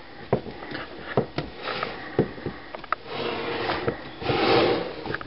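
Handling noise from a plastic-wrapped metal popcorn tin as a hand moves over its lid: a few light knocks and clicks, then stretches of rustling.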